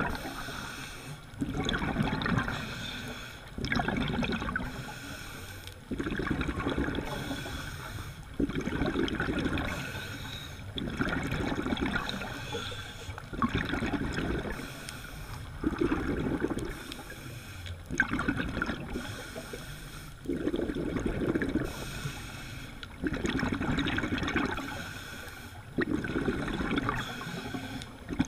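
Scuba diver's regulator breathing, heard underwater through the camera housing: a rush of exhaled bubbles and breath starts abruptly about every two and a half seconds and fades away.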